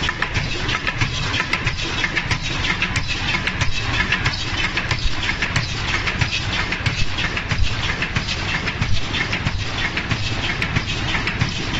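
Automatic surgical mask making machine running: a steady, dense mechanical clatter of rapid clicks over a low rumble.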